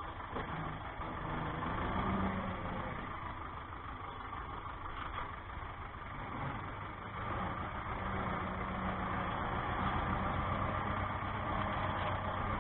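Ursus tractor's diesel engine running steadily, heard from inside the cab; the engine is freshly overhauled and still being run in. It gets a little louder about halfway through.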